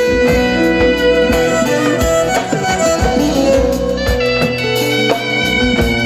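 Turkish folk instrumental music: a wooden end-blown kaval flute carries the melody over bowed fiddle and a steady drum beat.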